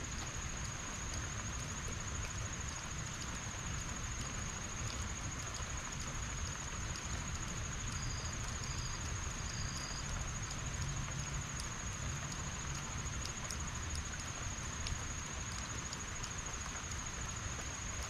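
Heavy rain falling steadily, a dense even hiss with fine drip ticks and a low rumble underneath. A steady thin high-pitched tone runs throughout, and three short high chirps come about halfway through.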